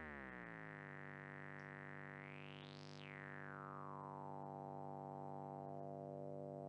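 Noise Toaster analog synthesizer's square wave, played through its resonant low-pass filter: a buzzy tone whose pitch glides down and settles low within the first second. A ringing resonant peak then sweeps up high and back down around the middle, and starts rising again near the end.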